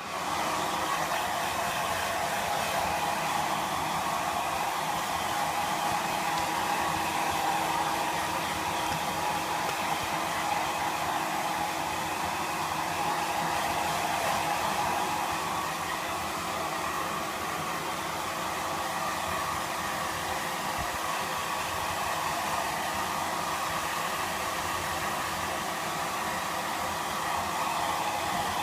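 Hair dryer blowing steadily. It switches on abruptly at the very start and runs at an even pitch and level.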